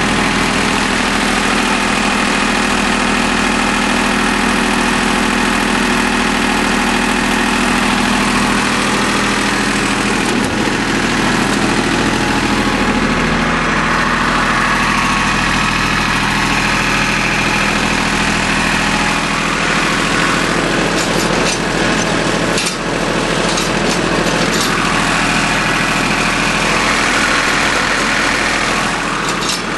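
Small Yanmar YM1401D tractor diesel idling steadily, running again now that the air has been bled out of its fuel lines and injectors.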